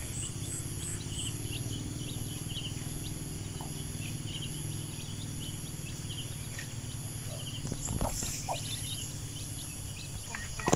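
Outdoor garden ambience: a steady low hum with scattered short, high chirps of birds and insects.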